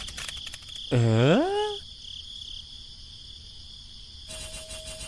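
A cow mooing once, about a second in, its pitch rising, over steady cricket chirping. A steady beep-like tone starts near the end.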